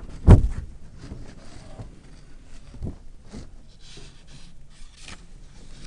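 A single heavy thump about a third of a second in, then a few light knocks and a soft paper rustle around four seconds in as sheets of paper on a desk are handled.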